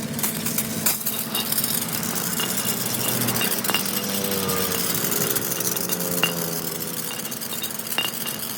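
Light metallic clinks of tools and parts being handled, a second or more apart, over a steady mechanical hum.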